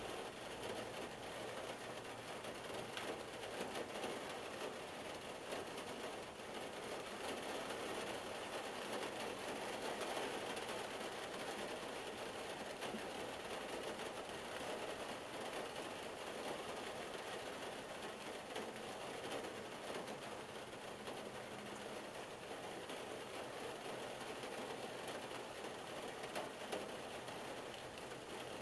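Rain falling on a car, heard from inside the cabin: a steady, dense patter of many small drops on the roof and windshield.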